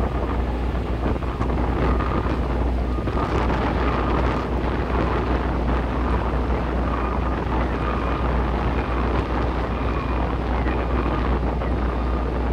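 Wind buffeting the microphone over the steady low rumble of a boat's engine.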